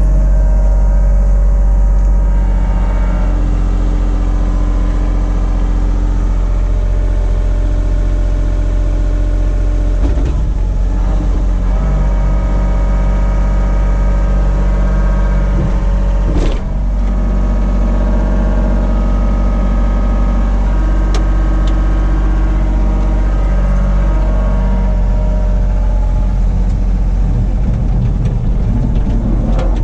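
Caterpillar mini excavator's diesel engine running steadily close by. Its note shifts a few times, and there is a single sharp clunk about halfway through.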